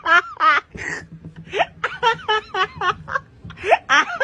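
A person laughing hard: runs of high-pitched "ha-ha" bursts broken by gasping in-breaths, twice.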